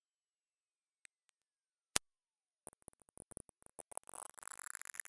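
Synthetic electronic clicks: a few single sharp clicks, then a run of clicks that speeds up until it merges into a buzzing electronic tone with gliding high pitches, growing louder near the end.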